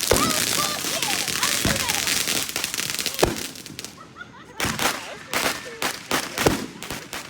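Fireworks: a dense crackling for the first few seconds, then a run of sharp separate bangs from a little past halfway, with voices in the background.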